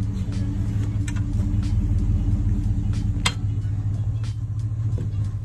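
Pickup truck engine idling with a steady low hum. A few light clicks come over it, with one sharp click about three seconds in.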